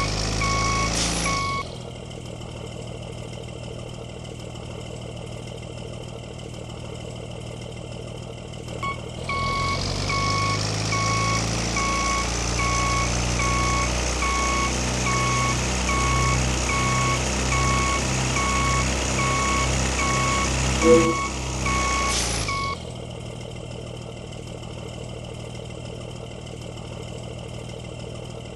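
Basuri bus horn sounding a rapid pulsing beep, briefly at the start and again for about thirteen seconds from around nine seconds in, each time ending with a sharp burst. A large engine runs underneath.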